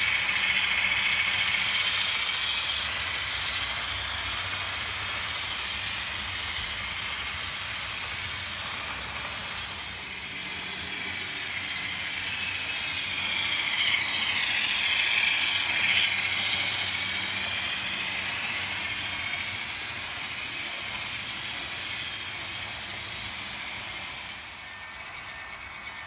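Model diesel locomotive and freight train running along the track, a steady motor-and-engine hum with wheel noise on the rails. It grows louder as the locomotive passes close at the start and again about midway, and the sound changes near the end.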